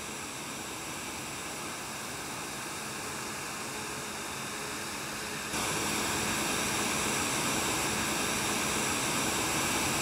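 Steady machine noise, an even rushing sound with faint steady high tones through it, stepping up in loudness about five and a half seconds in.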